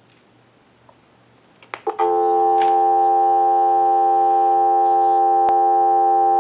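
Faint electrical hum and a few clicks, then about two seconds in a steady telephone dial tone comes on, heard from the Mickey Mouse telephone's receiver through an amplified pickup, holding at an even level.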